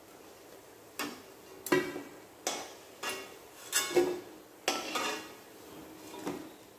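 A metal spatula scraping and knocking against the inside of a metal kadhai as fried pakoras are scooped out of hot oil: a string of sharp clinks and scrapes, some ringing briefly, roughly one or two a second.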